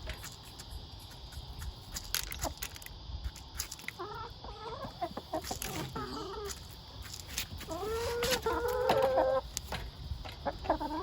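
Backyard hens clucking while feeding, with short calls from about four seconds in and one longer drawn-out call around the eight-to-nine-second mark. A few sharp clicks are heard throughout.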